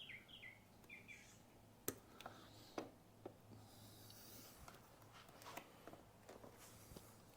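Near silence with a few faint, sharp clicks of hand work on the motorcycle's wiring, where zip ties are being snipped off. A small bird chirps a quick run of falling notes at the start, over a low steady hum.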